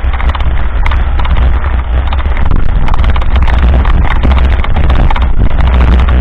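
Mountain bike rolling over a rough gravel dirt road, with a constant clatter of tyres and rattling bike parts over the stones, under a strong, steady rumble of wind buffeting the camera's microphone.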